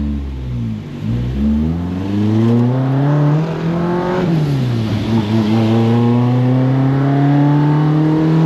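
Toyota AE86's twin-cam four-cylinder engine accelerating hard through the gears: the revs climb, drop at an upshift about a second in and again around four seconds in, then climb steadily again.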